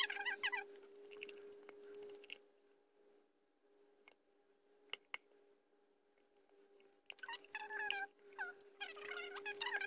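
A Shih Tzu whining in two bouts of wavering, high-pitched calls, one at the start and a longer one over the last three seconds, with a few light clicks in between. A steady low hum runs underneath.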